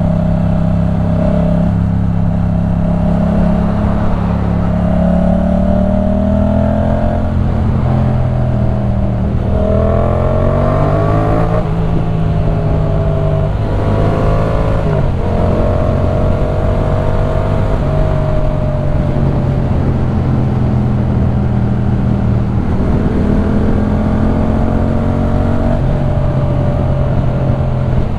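2015 Yamaha MT-07's parallel-twin engine through a LeoVince One Evo full-system exhaust, under way. The engine note holds steady, then climbs under acceleration from about eight seconds in. Its pitch drops sharply at two quick upshifts, after which it settles into a steady cruise with small rises and dips in speed.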